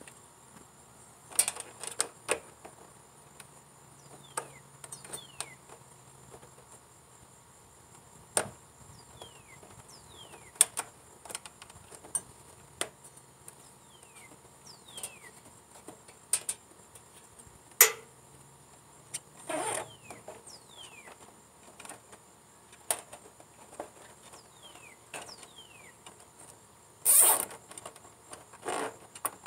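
Hands working wiring and plastic fasteners inside a lawn tractor's plastic hood: scattered sharp clicks and knocks, with two longer scraping bursts, one about two-thirds of the way through and one near the end.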